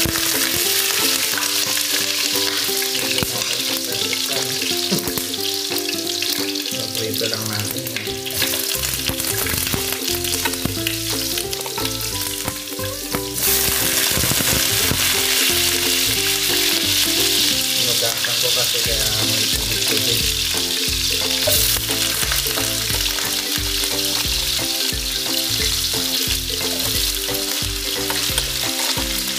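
Cubed potatoes and carrot slices frying in hot oil in a shallow pan: a steady sizzle that grows stronger about 13 seconds in as more pieces go into the oil.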